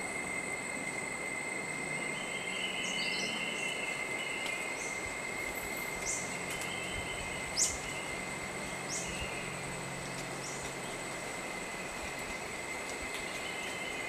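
Tropical forest ambience: insects droning steadily at two high pitches, with several short, high bird chirps, the loudest about halfway through.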